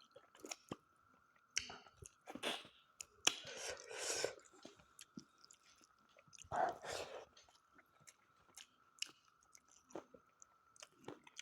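Close-up chewing and mouth smacking of a person eating spicy mutton curry with potatoes: irregular wet clicks and short crunchy bursts, stopping and starting.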